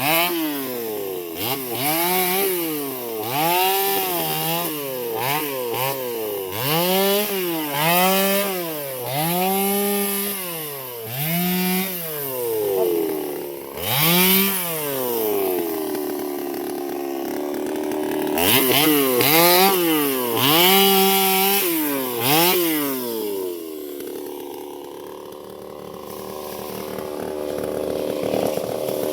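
Two-stroke chainsaw engine revving up and dropping back again and again, about once a second, as it saws into a tree. Near the end it settles to a lower, steadier note, then picks up again.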